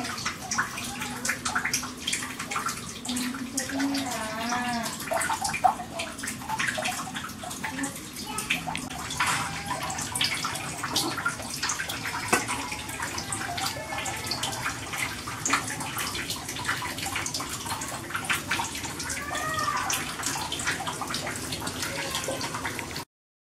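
Water boiling hard in a steamer pot, a steady dense bubbling and spattering, steaming banana-leaf-wrapped pepes. A short warbling sound comes about four seconds in and again near the end, and everything cuts off suddenly just before the end.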